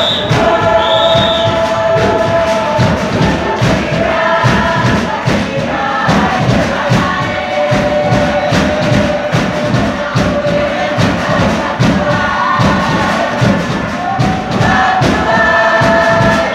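Tokelauan fatele: a large group singing in chorus over a fast, steady beat of drums.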